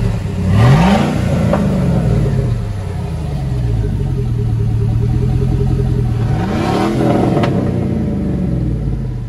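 2006 Chevrolet Tahoe's 5.3-litre V8 running with its muffler cut out and the stock catalytic converters left in, revved twice, once about a second in and again about seven seconds in, each time falling back to a steady idle.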